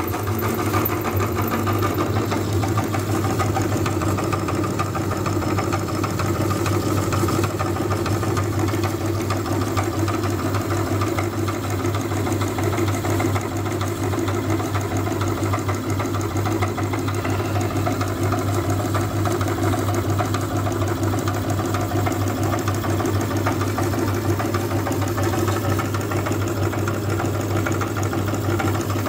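Electric meat grinder running with a steady low motor hum while Orbeez water beads are fed through it and crushed against the cutting plate.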